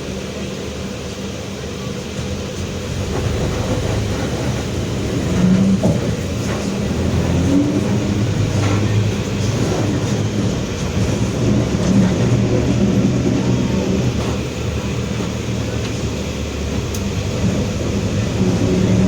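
Mercedes-Benz OF-1721 Bluetec 5 city bus under way, heard from inside: the diesel engine runs steadily under load and grows louder and shifts in pitch a few seconds in as the bus picks up speed. Through it runs a drone from the drive axle, the differential noise ("diferencial roncando") that this bus is known for.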